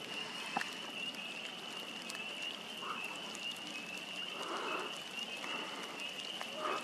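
Steady high-pitched trill of a distant frog chorus, with soft rustling of grass and clothing close by as the person filming lies down on the grass, a little louder near the end.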